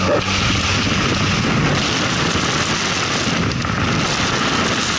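Ford Ranger's WL-T turbodiesel pulling hard under full throttle, nearly buried in a loud, steady rush of wind buffeting the microphone at the open window.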